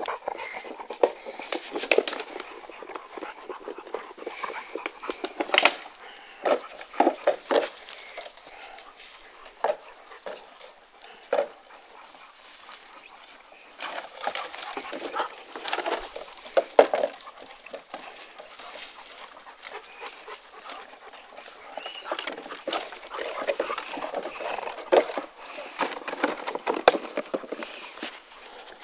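Dogs making short, irregular vocal sounds with pauses between them.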